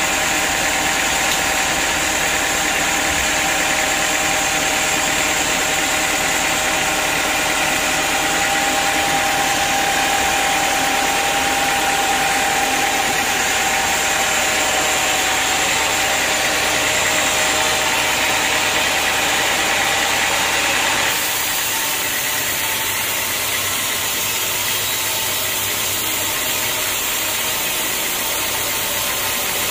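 Band sawmill running steadily as its blade cuts through a teak log, a loud even machine noise with a held whine. About two-thirds of the way in the sound changes abruptly to a softer, thinner running noise.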